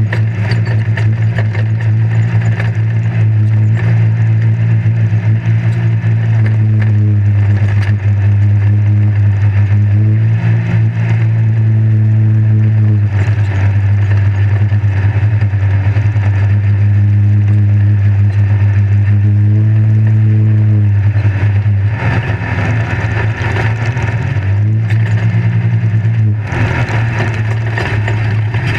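Off-road race vehicle's engine running hard at high, nearly steady revs, heard from inside the caged cab over the rattle and road noise of driving fast on dirt. The engine note drops briefly three times, and the last quarter is rougher and noisier.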